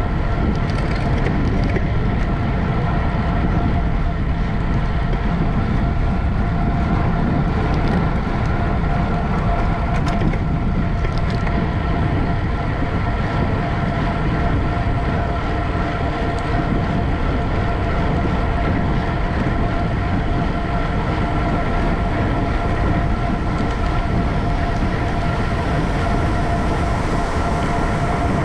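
Wind rushing over a bicycle-mounted camera's microphone at racing speed, with a steady low rumble and a constant high whine from the bike rolling along.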